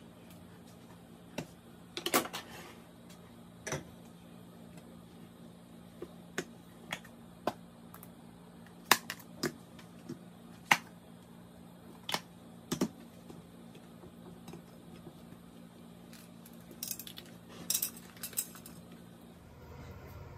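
Irregular clinks and clicks of a ceramic plate and cutlery knocking on a kitchen counter as a wrap is handled and cut, about a dozen spread through, some in quick clusters, over a steady low hum.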